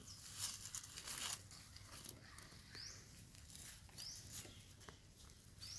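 Faint crackling rustle of dry leaves under the monkeys in the first second or so, then a short, high rising chirp that repeats about every one and a half seconds.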